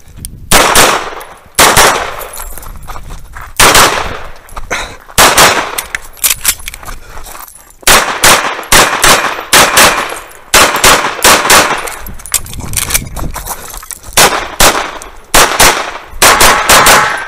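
Tanfoglio Stock 2 pistol fired in rapid strings, mostly double taps a fraction of a second apart, with short pauses between groups of shots as the shooter moves between positions, heard close to the muzzle.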